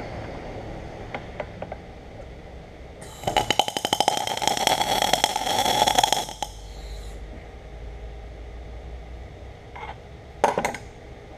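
MIG welder arc crackling for about three seconds as a steel tube is tack-welded. Near the end there is a brief metallic clank.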